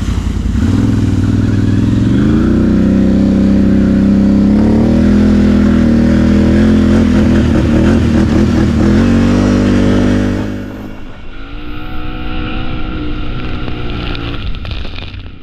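Can-Am XMR ATV engine revving under throttle, climbing in pitch over the first few seconds and held high while accelerating across the field. About ten seconds in the throttle is eased off and the engine drops to a quieter, lower note.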